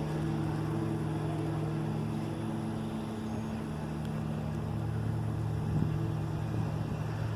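Steady low mechanical hum of a motor or engine running, holding an even pitch throughout.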